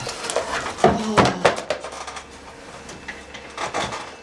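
Papers and folders handled hurriedly on a desk: rustling and rubbing, with a few sharp knocks about a second in and a couple more near the end.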